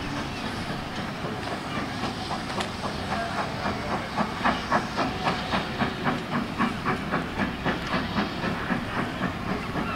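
GWR Manor class 4-6-0 steam locomotive 7827 Lydham Manor working a train, over a hiss of steam. From about two seconds in, its exhaust beats come through as a regular chuffing, about three a second, growing louder partway through.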